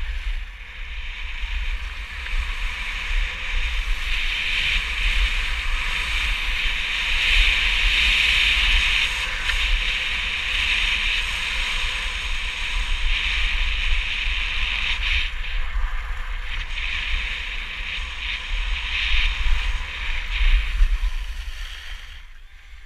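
Skis sliding and scraping over packed snow, a steady hiss that swells and fades with speed, with wind buffeting the GoPro's microphone as a low rumble beneath.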